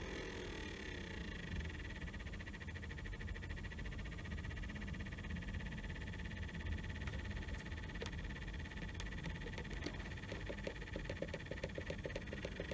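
Dyson Hot + Cool fan heater's motor running after a circuit-board repair, a steady hum with a thin high whine, its pitch sliding at the start and again near the end. A few light clicks come from the control buttons partway through.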